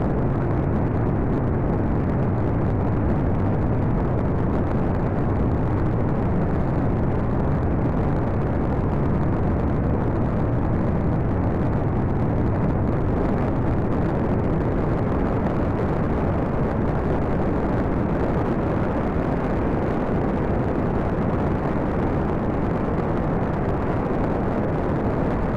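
Steady, unbroken in-flight noise of a light aircraft: a low rushing of wind and engine that doesn't change.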